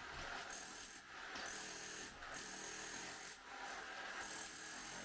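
Demolition hammer chiselling tiles off a bathroom wall, running in bursts of about a second with short breaks between them.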